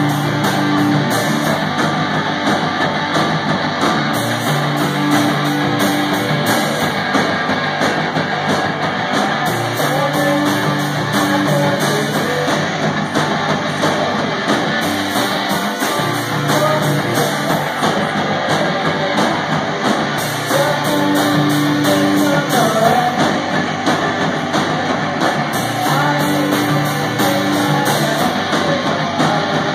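Live rock band playing: loud electric guitars over a repeating bass riff and a drum kit, steady and dense throughout.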